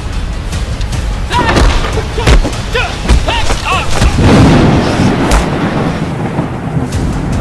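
Sharp hits from a staged hand-to-hand fight, several in the first half and one more past the middle, with short rising-and-falling cries between them, over a steady low thunder-like rumble.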